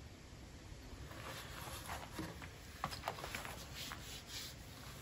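A leather strop being handled and buckled onto a wooden rail: soft rustling of the leather with a few light clicks near the middle.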